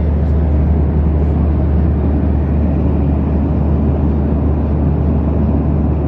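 Steady cabin noise of a jet airliner in cruise: an even rush of air and engine drone with a strong low hum.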